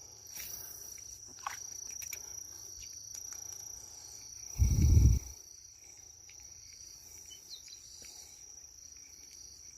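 Insects trilling steadily in one high-pitched tone. About halfway through, a loud low thud lasting about half a second.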